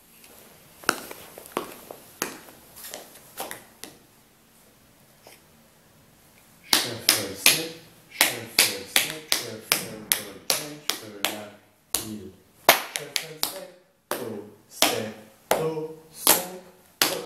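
Metal taps of tap shoes striking a hard floor: a few scattered taps, a short lull, then from about seven seconds in a quick run of taps, several a second.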